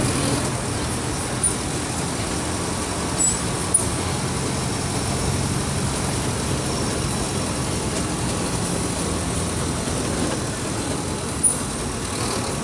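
Diesel engine of a Mercedes-Benz OF 1722M bus running steadily at mid revs as the bus drives. A few brief high-pitched clicks cut in over it.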